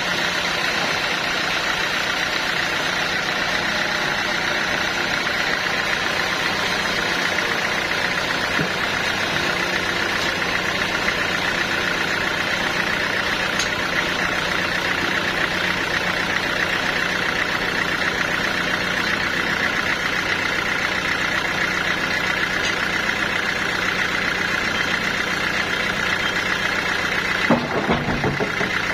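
Sawmill saw machinery running steadily, a constant mechanical drone with a high saw whine. There is a brief clatter near the end.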